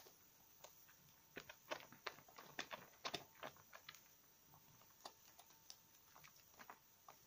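Wet bar of conifer soap being rubbed and squeezed between soapy hands in a bowl of lather: soft squelches and crackling foam pops, busiest in the first half and sparser later.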